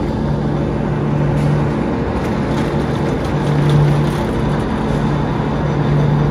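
Cable car running: a steady low mechanical hum over a rushing hiss, swelling and easing a few times.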